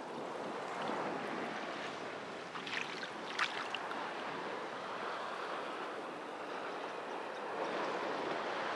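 Small waves lapping and washing over a shell-strewn shoreline, a steady wash of water, with a few sharp clicks about three seconds in.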